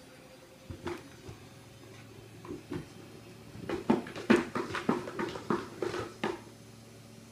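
A Kuvasz puppy moving about close by, making a flurry of short, sharp noises in the second half.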